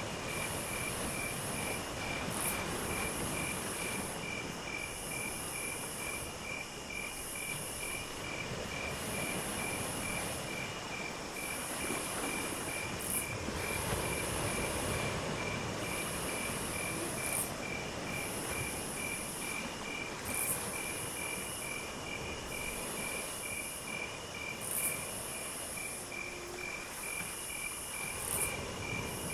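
Crickets and other insects calling: a steady chirp pulsing about two to three times a second, with a higher buzzing trill that comes in bursts of a second or two. Under them runs a continuous rushing background noise.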